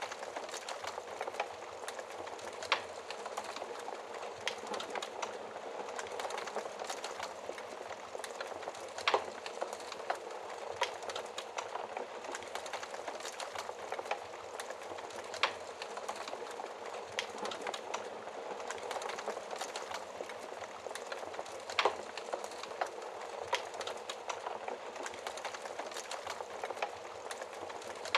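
Wood campfire burning: a steady hiss of flames with constant small crackles and a louder sharp pop every few seconds.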